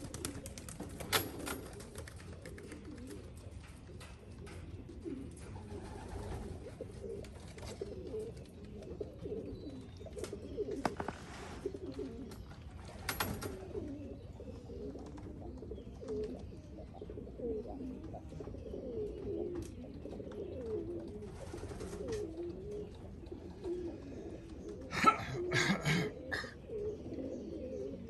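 Racing pigeons cooing continuously in low, wavering calls. A few sharp knocks or clatters break in, the loudest a quick cluster of about three near the end.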